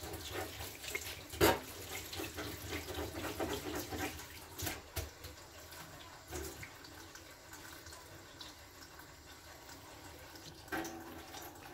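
Kitchen tap running into a sink, with one sharp knock about a second and a half in and a few lighter knocks later on.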